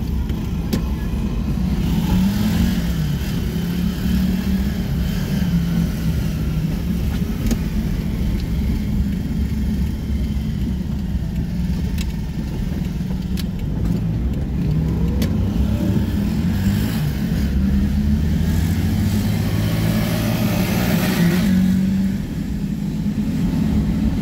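Car engine and road noise heard from inside a moving car's cabin, the engine note rising and falling as the car speeds up and slows through the streets. A louder rush of noise comes about three-quarters of the way through.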